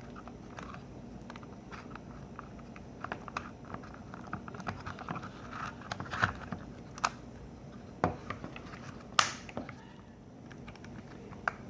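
Scattered small clicks, taps and plastic snaps as a Dodge Ram power window switch's plastic housing is pried and popped apart with a screwdriver, with a louder snap about nine seconds in.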